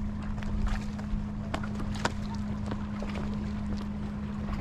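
Wind rumbling on the microphone under a steady low hum, with irregular sharp clicks of footsteps on stones.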